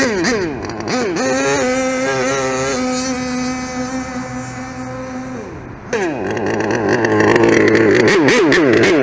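Gasoline engine of an HPI Savage XL Octane RC monster truck running at speed: it holds a steady high note that slowly fades, dies down briefly about five and a half seconds in, then comes back loud with the revs rising and falling rapidly as the throttle is worked.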